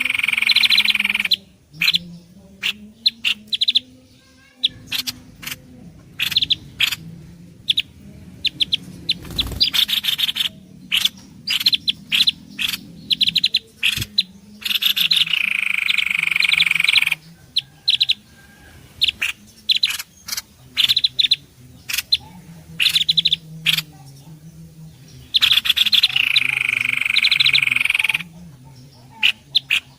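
Bird-lure recording of mixed small songbird calls: a loud buzzy trill repeats three times, roughly every eleven seconds, with many short sharp chirps and clicks in between.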